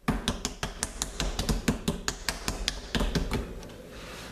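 Hands patting a slab of stoneware clay flat on a plastic cutting board: quick taps, about seven a second, stopping about three and a half seconds in.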